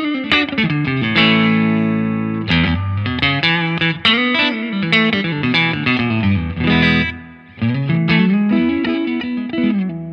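Electric guitar played clean through a Laney Lionheart Foundry combo amp: picked single notes and ringing chords, with a short break about seven seconds in. The amp's treble control is being turned as it plays, and the highs shelve off smoothly rather than vanishing.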